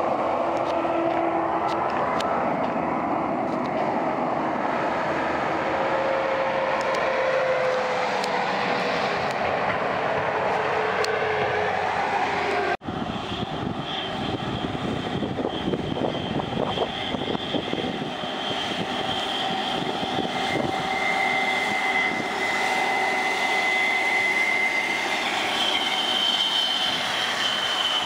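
Big farm tractors pulling loaded trailers along a highway: diesel engine and tyre noise from a Claas Axion tractor, with a pitch that falls as it goes by. The sound breaks off suddenly about halfway and gives way to a red Kirovets K-744 articulated tractor running with a steady high whine over the engine and road noise.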